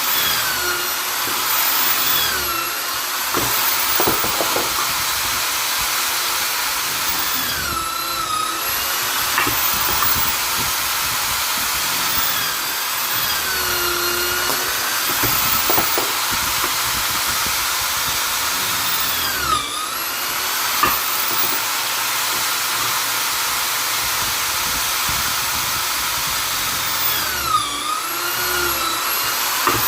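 Vonder drill/driver running continuously with a hissing whine. The motor pitch briefly dips and comes back up four times.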